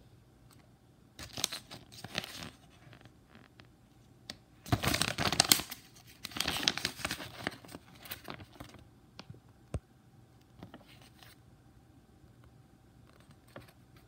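Paper pages of an instruction booklet being handled and turned: rustling in several bursts, loudest about five seconds in. A single sharp tick comes near the tenth second.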